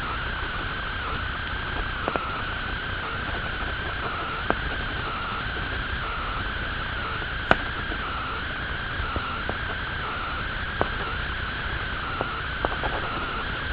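Steady background hiss with a faint wavering whine, broken by a few light ticks, one sharper tick about halfway through.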